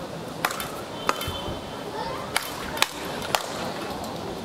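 Speedball rally: paddles striking the tethered ball in sharp, hard clicks, five hits spaced from about half a second to over a second apart.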